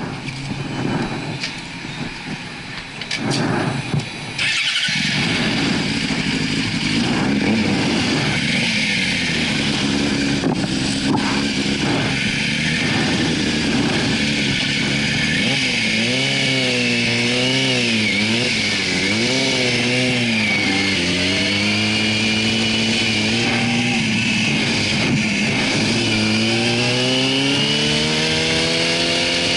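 Yamaha YZF-R6 motorcycle's inline-four engine at low road speed, its pitch rising and falling with the throttle as the bike pulls away, then climbing steadily as it accelerates near the end. Wind hiss runs underneath.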